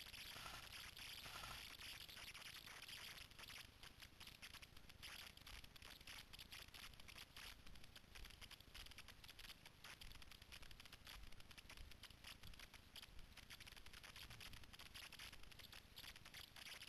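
Faint footsteps and rustling through dry leaf litter and twigs on a forest floor, a dense run of small irregular crackles over a low hiss.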